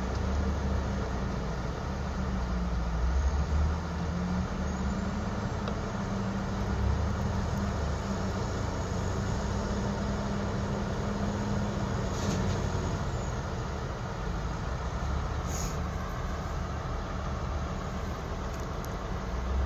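Heavy diesel engines of a Caterpillar 773F haul truck and a wheel loader running steadily at idle, a constant low drone. A couple of brief clicks come about twelve and sixteen seconds in.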